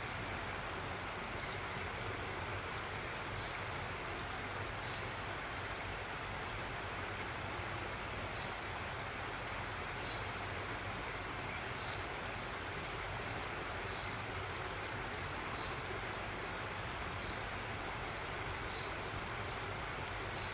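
A stream of running water rushing steadily, with short high bird chirps every second or so over it.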